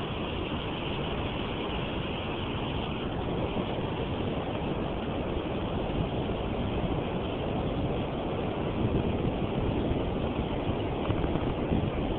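Steady rushing noise of fast, choppy river water around the boat, with wind buffeting the microphone.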